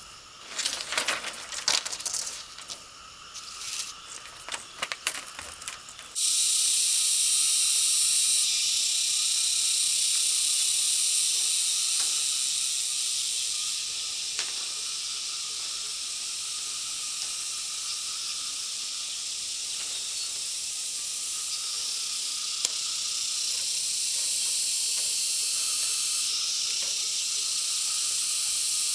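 A chorus of insects droning steadily at a high pitch, starting suddenly about six seconds in and swelling and easing in small steps. Before it, a few seconds of scattered clicks and knocks.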